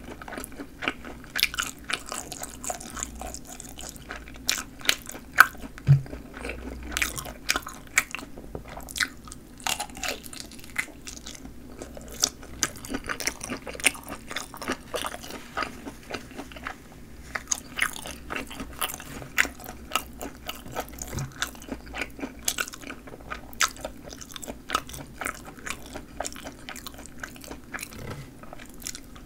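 Person biting and chewing snappy-casing sausages: a steady run of irregular crisp snaps and wet chewing clicks.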